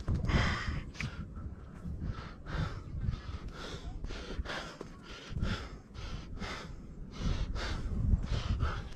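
A person breathing hard in quick, rhythmic breaths, about two a second, over a low wind rumble on the microphone.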